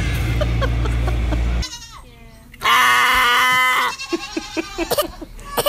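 A steady low rumble cuts off suddenly about one and a half seconds in. A farm animal then gives one loud bleat lasting about a second, followed by a few small clicks and brief faint cries.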